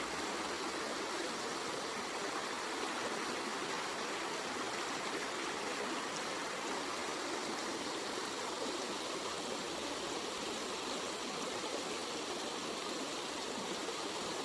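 Waterfall, water rushing and splashing in a steady, unbroken hiss.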